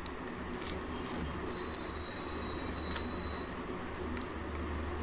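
Faint crinkling and brushing of a thin plastic sheet as a hand presses flattened potato appadalu dough through it, with scattered light clicks over a steady low room hum.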